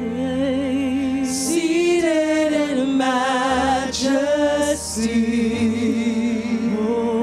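Gospel worship song: women singing long, held notes with vibrato over sustained accompaniment chords that change every couple of seconds.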